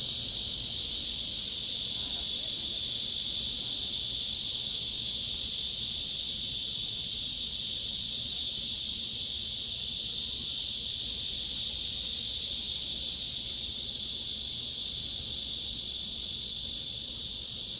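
Cicadas buzzing in one unbroken, steady high-pitched drone, with no pulses or pauses.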